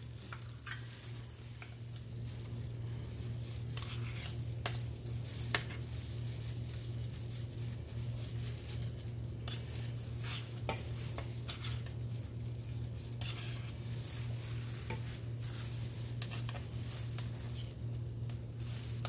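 A butter knife scraping and clicking against a metal measuring cup and a stainless steel bowl as solid coconut oil is scooped out, in scattered short strokes over a steady low hum.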